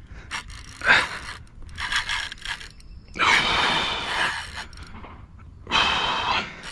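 Hard, gasping breaths from an angler straining against a hooked wels catfish on a bent rod, four of them, each about a second long. Small mechanical clicks from the fishing reel come between the breaths.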